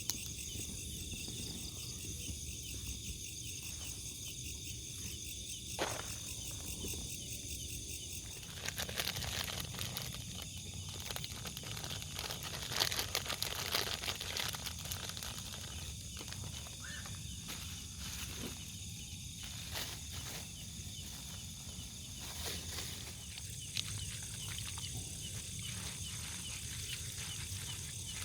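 Night chorus of crickets and other insects, a steady high trilling. From about nine seconds in, irregular crackling and clicking handling noises join it, busiest around the middle.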